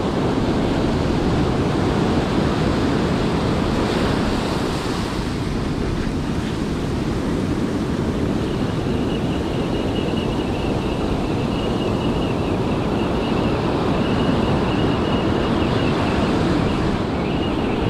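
Surf washing up a sand beach, with wind on the microphone. From about eight seconds in there is a faint, thin, high whine from a spinning reel being wound in to retrieve a lure.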